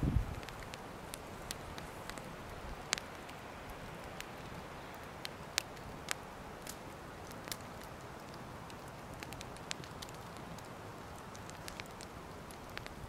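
Wood campfire burning, with irregular sharp crackles and pops over a steady soft hiss. There is a brief low thump right at the start.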